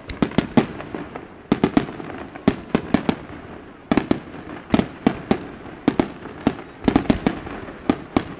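Aerial firework shells bursting overhead: many sharp bangs in quick, irregular succession, some bunched close together.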